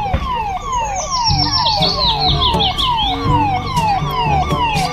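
Police vehicle sirens wailing in quick, repeating downward sweeps, with several sirens overlapping at different pitches.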